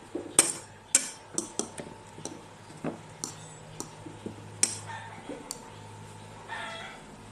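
Utensils clinking and tapping against dishes and a pan in irregular sharp knocks, some with a short metallic ring.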